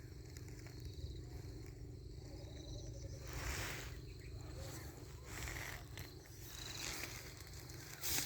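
Countryside ambience with a steady low rumble, a few faint high chirps from insects or birds, and brief rustling swells about a third of the way in, near the middle and at the end.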